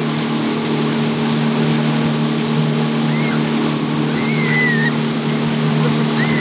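Motorboat engine running steadily at speed, with the rush of water from its churning wake.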